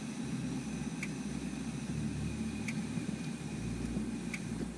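Portable gas camping stove burning steadily under a pot, a continuous hiss. A faint short high note repeats about every second and a half.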